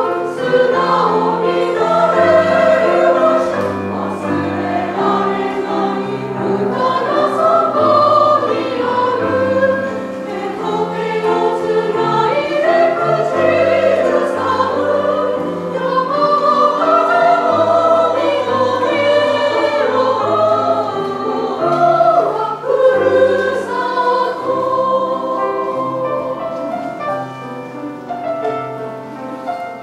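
Women's choir singing in parts with piano accompaniment: long held notes that move together in chords over steady low piano notes, a little quieter near the end.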